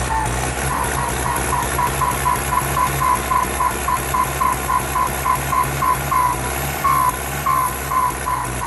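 Ford 6610 tractor's turbocharged diesel engine running at a low, steady note, with a fast series of short, high beeps over it, about three a second, with a brief gap near the end.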